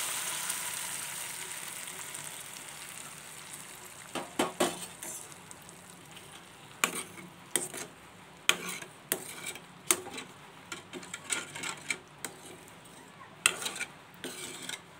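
Hot tempering in an aluminium kadai sizzling as rice starch water is poured in, the hiss dying away over the first few seconds. Then a steel spoon stirring the liquid, scraping and clinking against the pan in irregular strokes.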